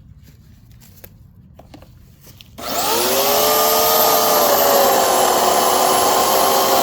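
Bauer chainsaw, fitted with a new 16-inch Oregon chain now mounted the right way round, starting up about two and a half seconds in with a quickly rising whine and then running steadily at speed, its pitch sagging slightly in the middle. A few faint clicks of handling come before it starts.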